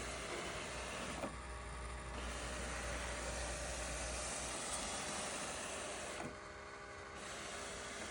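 Ecovacs Deebot X2 Omni robot vacuum running with its main roller brush motor engaged, a steady loud mechanical whirr with hiss at its lowest suction setting. Twice, a little over a second in and again past six seconds, a click comes and the sound briefly drops. The owner finds it abnormally loud for that setting and traces the noise to the main brush motor rather than the brush.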